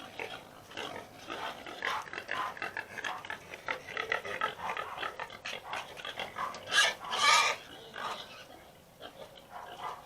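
Pigs eating wet kitchen scraps, with a continual irregular chomping and smacking and occasional grunts. Two louder calls come about seven seconds in.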